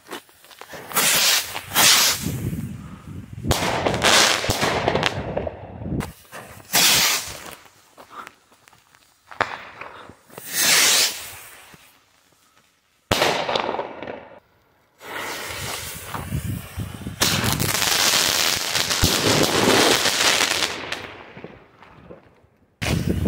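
Fireworks set off at ground level: a run of loud bangs and long hissing, crackling bursts, some with a sweeping whistle. They break off and start again abruptly several times.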